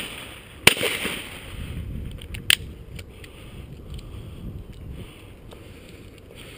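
Shotgun firing at doves: one loud shot just under a second in, which trails off over about a second and ends a quick string of shots about a second apart. A fainter, sharper shot follows about two and a half seconds in.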